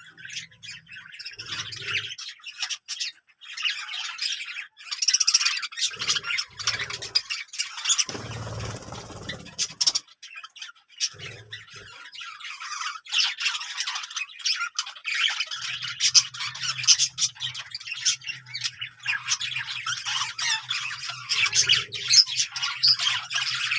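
A group of Australian parrots chattering and squawking, with many short sharp calls overlapping without a break.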